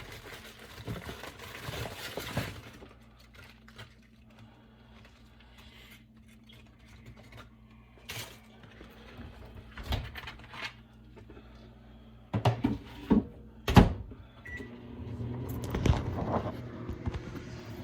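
Microwave oven running with a low steady hum, with rustling at the start, scattered knocks, and a cluster of loud knocks and thunks about thirteen seconds in, followed by a short beep.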